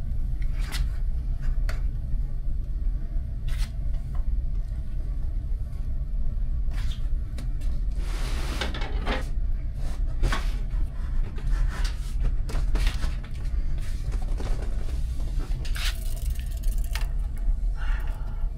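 Scattered clicks and knocks of parts and a cardboard printer box being handled, with a longer scrape of the box about halfway through. All of it sits over a steady low rumble.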